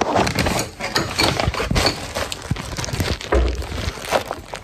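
Handling noise close to a phone's microphone: a quick run of rustles, taps and knocks, with a low bump about three and a half seconds in.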